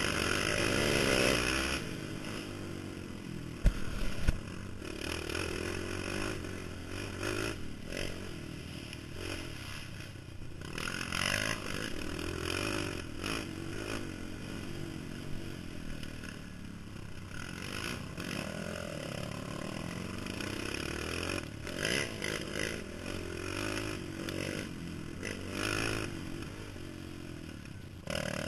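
Honda TRX450R quad's single-cylinder four-stroke engine running along a dirt trail, its pitch rising and falling with the throttle, under wind noise on a helmet-mounted microphone. Clatter and scraping from the machine over the bumpy ground, with two sharp knocks about four seconds in.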